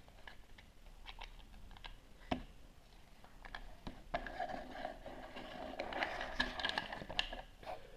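Plastic Play-Doh Diggin' Rigs cutter toy being handled: light clicks and taps, then from about four seconds in a denser scraping rattle as it is pushed along the table on its wheels and cutting wheel.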